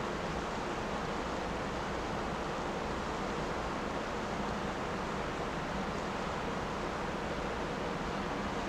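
Steady, even rushing noise of waterside outdoor ambience, with no distinct events.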